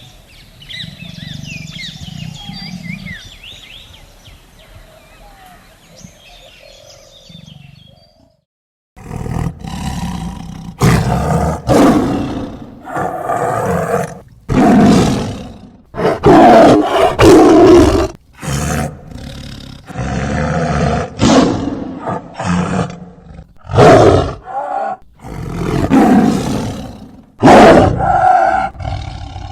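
Tiger growling low, with faint high chirps above it. After a brief break about eight seconds in, it gives a long string of loud roars and snarls, one short burst after another.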